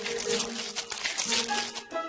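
Gift-wrap paper crinkling and tearing as a layer is pulled off a wrapped parcel, over background music with long held notes. The rustling stops near the end.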